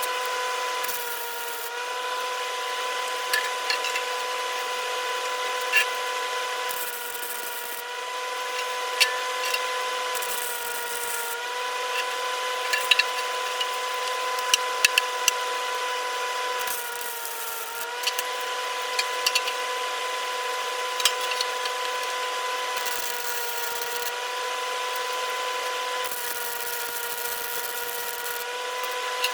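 Electric power tool running with a steady whine. Its pitch sags briefly about six times as it bites into the work, each time with a harsh hiss, and sharp ticks are scattered throughout.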